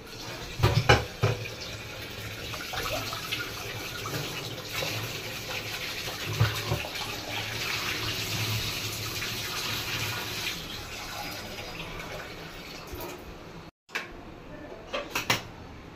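Kitchen tap water running into a steel pressure cooker pot as taro roots are rinsed in it, a steady splashing hiss. There are a few knocks about a second in and another about six and a half seconds in. The water cuts off suddenly near the end.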